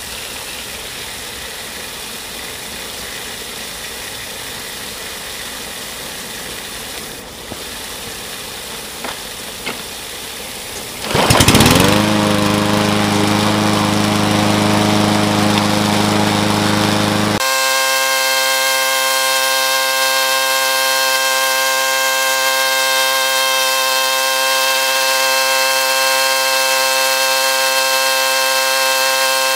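Water from a garden hose running through a lawn mower deck's washout port, then about eleven seconds in the Cub Cadet 159cc mower engine starts, rising quickly in pitch and settling to a steady run as the blade spins in the water-filled deck. About six seconds later the sound abruptly turns thinner and higher, still steady.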